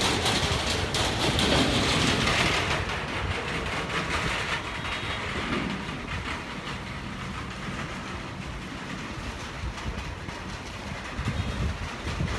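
Wind gusting over the microphone and through a field of tall flowering grass: a low buffeting rumble with a rustling hiss, strongest in the first few seconds, then easing.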